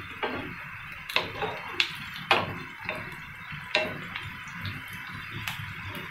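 Chopped onions sizzling in hot oil in a non-stick frying pan, with a steady hiss, while a wooden spatula stirs them and knocks against the pan about five times.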